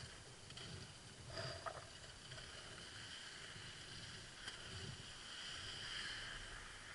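Skis sliding over snow on a downhill run: a steady hiss that grows louder toward the end, with low wind rumble on the microphone.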